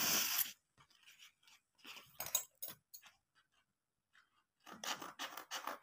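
Paper being handled for a craft: a few soft scattered rustles and scrapes, a short quiet gap, then quick scratchy rustling starting about four and a half seconds in.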